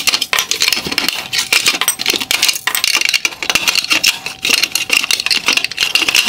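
Headlight reflector housing and its black LED bracket units being pried apart and handled: a quick, unbroken run of clicks, clinks and rattles of hard metal and plastic parts as the plastic welds holding the LED units are broken off.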